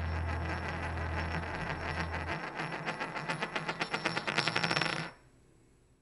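A gold wedding ring spins and wobbles down on a hard, glassy surface, its rattling clicks coming faster and louder until it settles flat and stops abruptly about five seconds in. A deep held note of the closing music ends about two seconds in.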